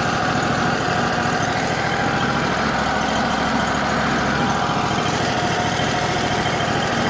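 Wood-Mizer LT35HD sawmill's engine running steadily.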